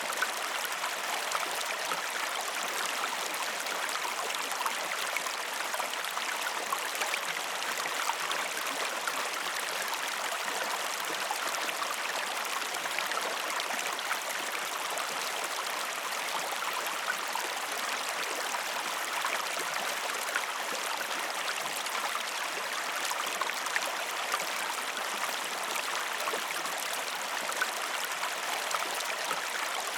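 River water flowing steadily over stones, an even rushing with small splashes and trickles.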